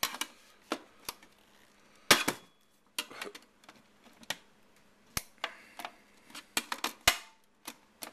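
Irregular sharp metal clicks and knocks, the loudest about two seconds in, as the steel case of an old Apple floppy disk drive is worked open from the top.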